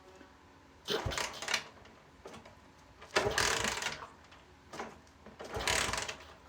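Three short bursts of mechanical rattling and scraping from hands-on work on a motorcycle, about a second in, past three seconds and near the end.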